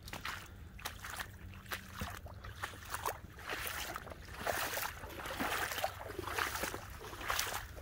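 Dogs' paws and footsteps splashing and squelching through shallow floodwater and wet leaf litter: irregular splashes and crunches that grow busier and louder after about three seconds.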